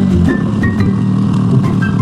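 Cartoon background music with short, high mallet-like notes over a vehicle engine sound effect, a low drone that turns into a fast pulsing.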